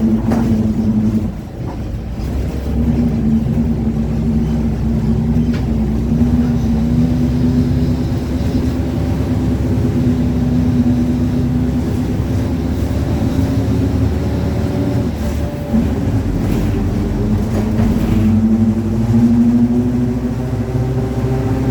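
Mercedes-Benz OF-1721 BlueTec5 city bus under way, its differential growling: a steady pitched drone over the drivetrain rumble. The drone wavers in pitch, drops away briefly about a second and a half in and again around fifteen seconds, then climbs back near the end.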